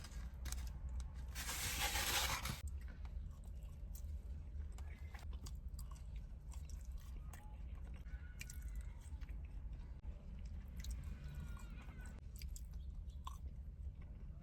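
Close-miked chewing of crispy fried chicken, with moist smacks and crunches, and a louder crunching burst about two seconds in.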